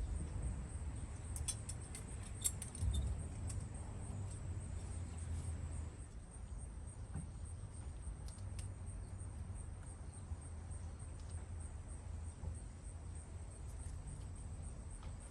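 Crickets trilling steadily in a high, evenly pulsing chirr. Near the start there are a few light clicks and rattles, under a low rumble.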